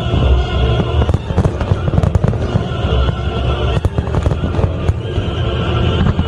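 Fireworks bursting in rapid succession, sharp bangs and crackles over a deep rumble, with music playing alongside.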